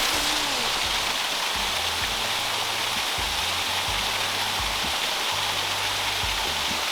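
Steady hiss of falling water, with background music underneath.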